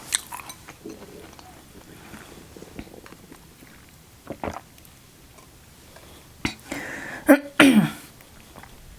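Close-up chewing of a last mouthful of food, then near the end a few sudden cough-like outbursts and a strained voiced sound falling in pitch, as food goes down the wrong way.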